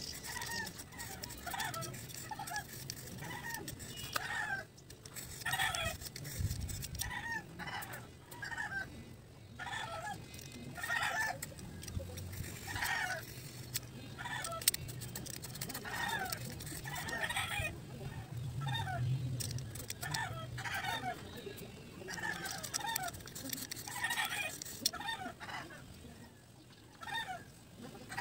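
Chickens clucking, short calls repeating every second or so.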